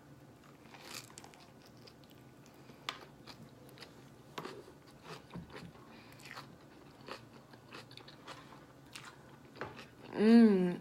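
A person biting into and chewing a large vegan spring roll: soft, scattered chewing clicks and smacks. Near the end comes a short, loud vocal sound.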